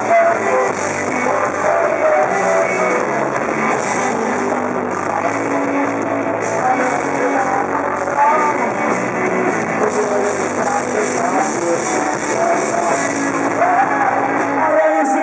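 Rock band playing live: electric guitars and a singing voice over a dense, loud band sound, captured as a rough, poor-quality audience recording.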